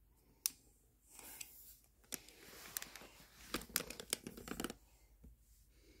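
Handling noise from a hand-held combination padlock: a sharp metallic click about half a second in, then a few seconds of rubbing and rapid clicking that stops abruptly.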